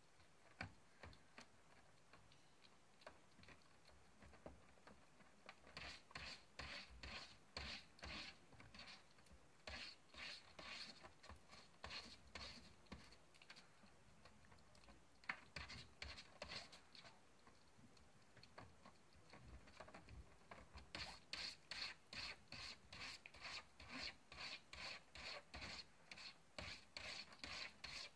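Calico kitten scratching and pawing at her food bowl after eating, in quiet bouts of quick rasping strokes, about two a second.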